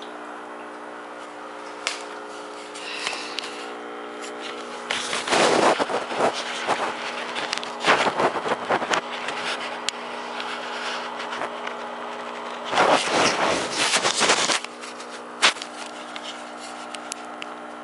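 Steady electrical hum from aquarium equipment, with three loud spells of scraping, knocking handling noise on the microphone and a single sharp click near the end.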